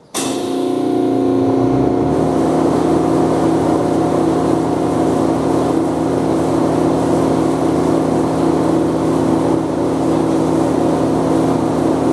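TIG welding machine switched on and running, a steady mechanical hum that starts abruptly; no arc is struck yet.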